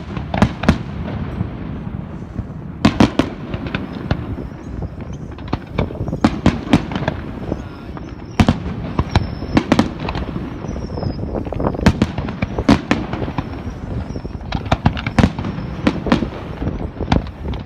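Fireworks display: a continuous run of irregular bangs and sharp cracks, several a second at its busiest, over a low rumble of echoing booms.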